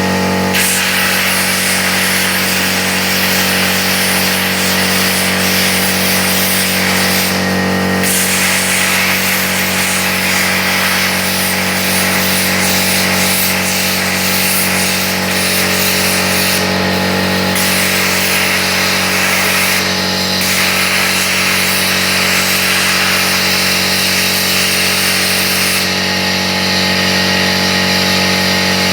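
Plasma cutter running: a steady, loud hiss of air and arc over a constant electrical hum, with the hiss changing briefly a few times.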